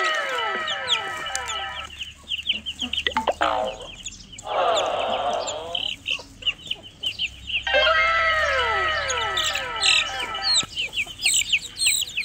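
Chickens calling: young chicks peeping in short high chirps, with clucking. A run of long falling tones sounds twice, near the start and again about eight seconds in.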